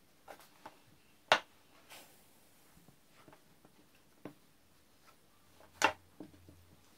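A few scattered sharp taps and knocks as clay-working tools and a small clay slab are handled on a worktable, two of them clearly louder than the rest.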